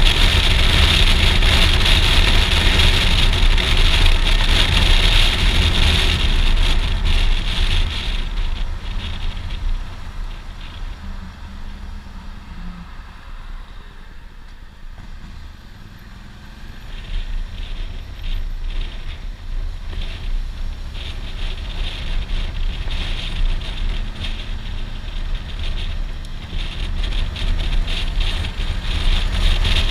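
Wind rushing over a helmet-mounted microphone on a moving Suzuki V-Strom 650XT, with the bike's V-twin engine running underneath. The rush dies away about a third of the way in as the bike slows almost to a stop, then builds again as it pulls away and gathers speed.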